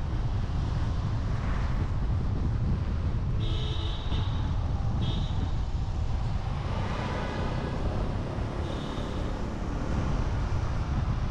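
Steady low rumble of wind on the microphone and street traffic while moving along a town street, with short high-pitched tones about three and a half and five seconds in.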